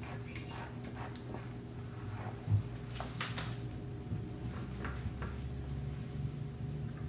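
Light kitchen handling noises: scattered small taps, one thump about two and a half seconds in and a brief scrape just after, over a low steady hum.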